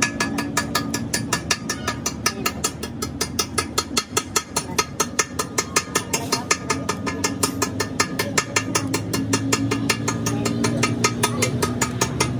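Steel chipping hammer rapidly tapping slag off a fresh weld bead on a truck axle housing, a quick, even run of metallic taps about seven a second, over a steady low hum.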